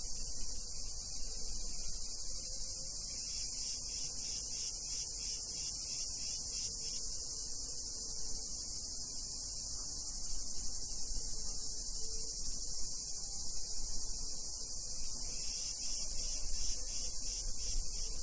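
Chorus of cicadas buzzing in a steady, high, rasping drone. A low rumble sits underneath and grows more uneven in the second half.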